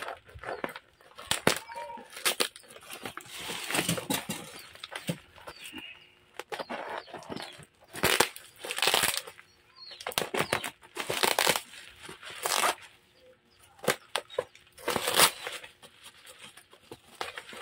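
Plastic courier pouch and bubble wrap crinkling and rustling in irregular bursts as the pouch is cut and torn open with scissors.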